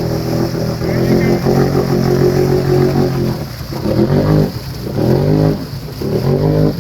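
ATV engine running at a steady pitch, then revving up and down repeatedly, about once a second, from about halfway through.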